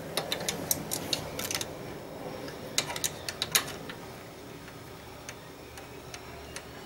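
Sharp light metal clicks and ticks as a fairing mounting clamp and its Allen-head bolt are handled and fitted on a motorcycle's chrome fork tube, coming in quick irregular clusters over the first few seconds, then only a few faint ticks.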